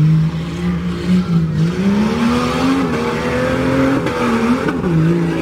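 Jeep Cherokee engine revving hard under full throttle. Its pitch climbs steadily for about three seconds, dips sharply about four seconds in, then rises and drops again near the end.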